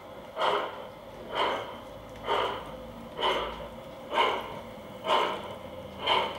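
Sound unit of an LGB G-scale model steam locomotive chuffing slowly and evenly, about one chuff a second, seven in all, as the locomotive runs along the track.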